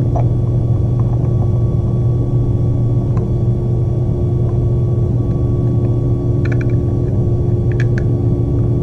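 Steady low machine hum with no change in level, with a couple of faint short clicks near the end as small plastic parts are handled.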